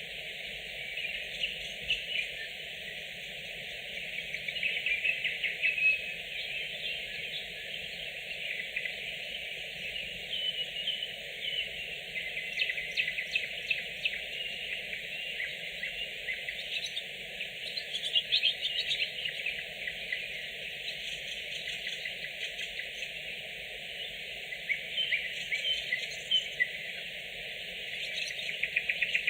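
A nightingale singing: a run of varied phrases, mixing rapid clicking trills with short whistled notes, over a steady background hiss.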